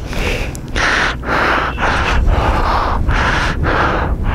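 A person breathing hard and fast close to the microphone, a regular run of loud breaths about every half second, over a low wind rumble on the mic.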